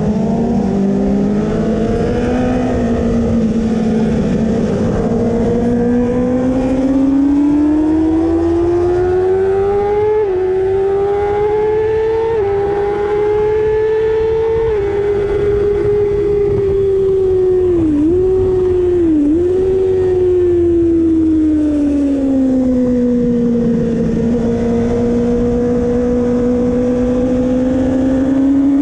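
Kawasaki ZX-6R 636 inline-four racing engine running hard under a rushing haze of wind noise. The revs climb with a couple of sudden steps in pitch, hold high, dip sharply twice in quick succession about two-thirds of the way in, then fall away and climb again near the end.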